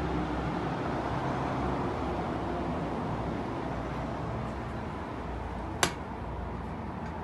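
Steady low background rumble with one sharp click about six seconds in.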